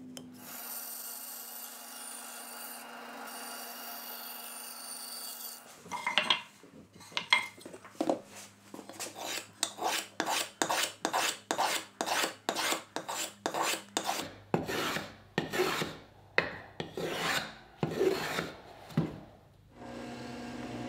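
A hand tool shaving or rasping a small sapele wood piece in quick back-and-forth strokes, about two a second. The strokes begin after about six seconds of faint steady hiss and stop shortly before the end.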